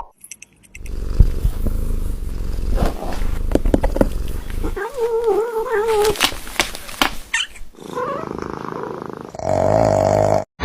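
Domestic cat sounds: a low rumbling purr, then about five seconds in a drawn-out, wavering meow lasting just over a second. A brief steady tone follows near the end.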